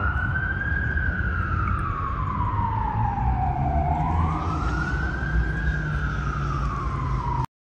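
Emergency-vehicle siren wailing, rising and falling slowly about every four seconds over a low rumble; it cuts off suddenly near the end.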